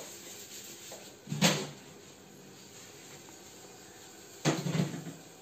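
Dishes being scrubbed in a stainless steel sink, with two clattering knocks as a utensil strikes the sink: one about a second and a half in, and a slightly longer rattle near the end.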